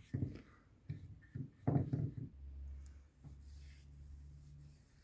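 A few light knocks and some rubbing as wooden panels are handled and wiped with oil, the loudest knock a little under two seconds in, followed by a faint low steady hum.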